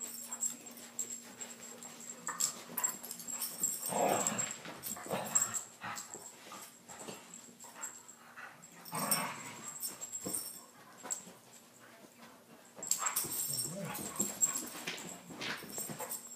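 Two dogs play-fighting over a toy: bursts of dog vocal noises and scuffling in three spells, strongest about four seconds in, again around nine seconds, and near the end.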